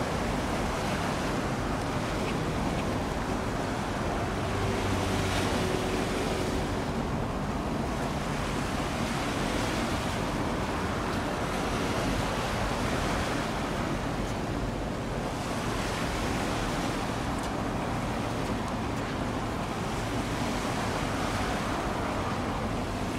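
Wind buffeting the microphone over the wash of water, swelling and easing every few seconds, with a low steady drone of a passing ship's engine underneath.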